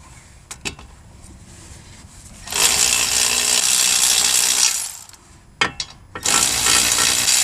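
Air-powered wrench running in two bursts of about two seconds each, loosening the bolts that hold the front wheel hub, with a few metal clicks of the socket between the bursts.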